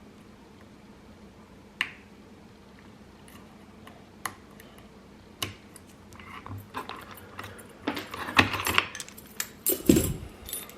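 Metal lock picks and a tension wrench working in a Paclock 90A Pro padlock: a few sharp, separate clicks at first, then busier clicking and metallic rattling in the second half.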